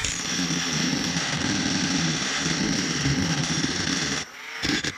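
Handheld rotary tool with a small grinding bit running at a steady high whine while grinding the port edges of an aluminium two-stroke cylinder. It stops about four seconds in and runs again briefly near the end.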